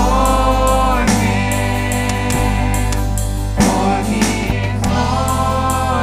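Live worship band playing a gospel-style song: a woman's lead voice with men's voices singing along over bass, drums and keys, with long held sung notes.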